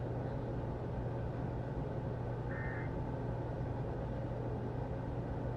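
Steady radio background hiss with a low hum from a weather-alert receiver, and a faint short tone burst about halfway through.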